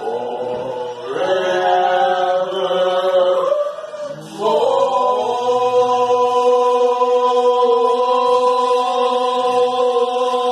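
A group of voices singing together: a slow phrase, then, about four and a half seconds in, one long steady note held without a break.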